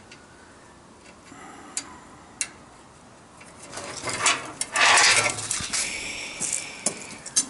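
Small metal pieces being handled: two sharp clicks, then about three seconds of metal clattering and scraping.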